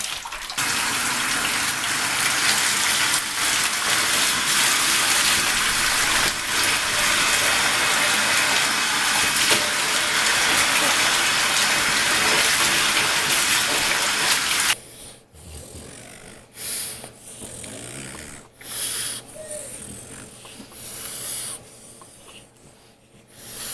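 Steady rush of water running into a bathtub while a wet French bulldog is rinsed, cutting off suddenly about fifteen seconds in. After that come quieter scattered short sounds, with one brief rising-and-falling pitched sound a few seconds later.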